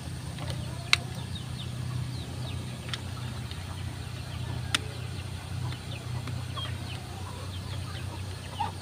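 Two sharp plastic clicks, about a second in and again near five seconds, as a metal detector's yellow control box is handled and fitted onto its shaft. Underneath runs a steady low background with faint short bird chirps.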